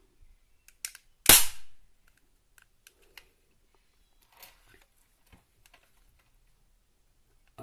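Umarex Walther P22 spring-powered airsoft pistol firing a single shot about a second in, a sharp crack after a small click. A few faint handling clicks follow.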